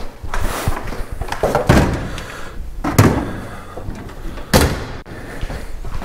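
A handful of knocks and thuds from someone working by hand, one every second or so, the sharpest about three seconds in.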